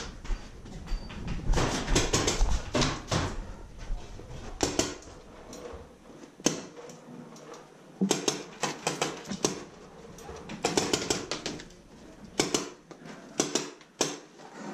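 Paintball markers firing: short strings of sharp, rapid pops in several separate volleys, heard from inside a small wooden shed.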